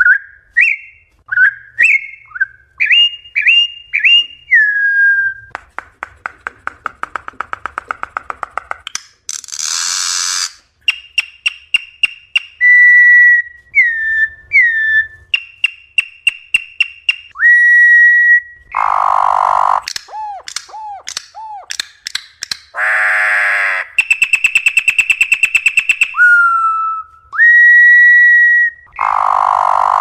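Campo troupial (corrupião) singing a long, varied wild song: clear whistled notes, some sliding up or down, mixed with rapid rattling trills and several harsh, scratchy bursts.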